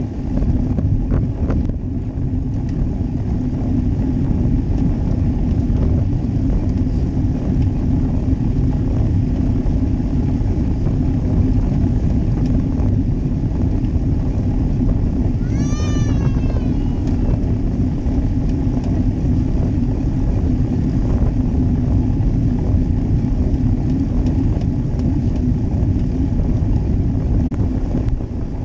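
Steady wind rush on a bike-mounted action camera's microphone, with road-bike tyre and road noise from riding in a bunch of cyclists. About halfway through, a brief high-pitched sound falls in pitch.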